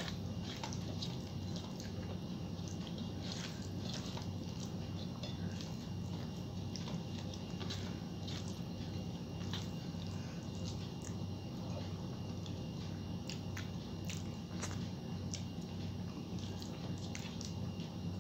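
Eating by hand: fingers squishing and mixing rice with pumpkin curry on a steel plate, with chewing and many small wet mouth clicks, over a steady low hum.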